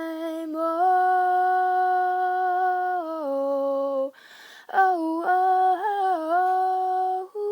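A woman's voice singing wordless long notes a cappella. One note is held for about four seconds and steps down near its end. After a short breath she sings a second phrase of sustained notes with small turns.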